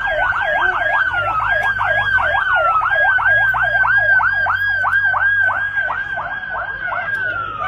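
Ambulance siren sounding a fast yelp, the pitch sweeping up and down about three times a second, ending in one longer falling glide near the end.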